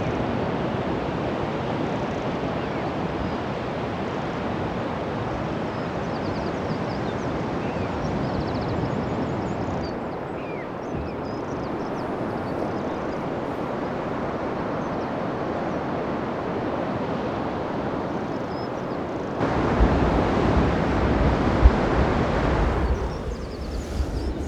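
Sea surf washing steadily, with faint calls of red-billed choughs above it. About three-quarters of the way through, a louder low rumble of wind on the microphone sets in.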